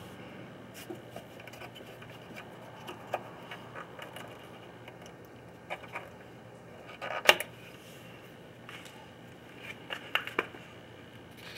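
Scattered metal clicks and knocks of a small wrench and hand working on a front lowering link inside the wheel well, with the sharpest knock about seven seconds in and a quick run of clicks near the end.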